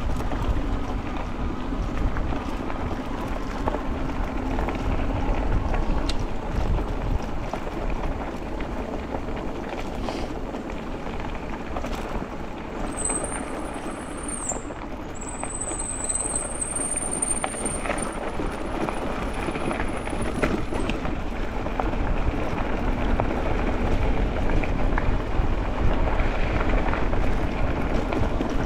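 Wind rushing over the microphone and steady tyre noise from an e-bike riding along a trail. A thin, high whine comes in for several seconds around the middle.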